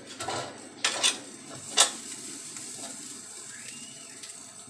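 A spatula scraping and stirring clam meat fry in a frying pan, about four short strokes in the first two seconds, then a steady low sizzle from the frying.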